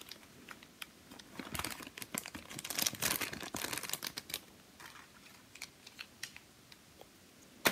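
Thin clear plastic bag crinkling in the hands as it is opened and small hard plastic toy pieces are taken out, with scattered light clicks. The crinkling thins out about halfway through, leaving a few clicks and one sharper click near the end.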